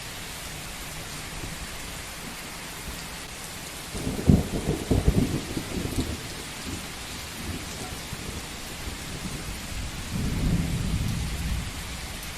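Steady rain falling, with a loud crackling roll of thunder about four seconds in that lasts around two seconds, and a softer rumble of thunder near the end.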